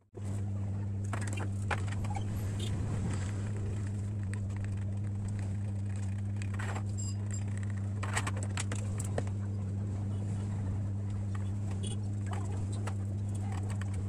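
Steady electrical hum from a running bench appliance. It switches on suddenly at the start and holds an even low drone throughout, with scattered light clicks of metal tools and a circuit board being handled.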